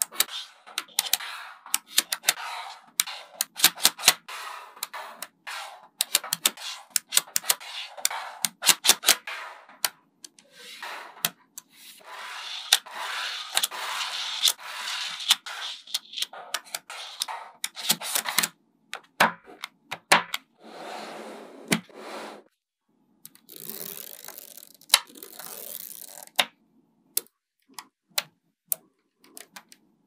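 Small metal magnetic balls clicking and snapping together as strips of them are laid against one another, many sharp irregular clicks with stretches of continuous rattling around the middle.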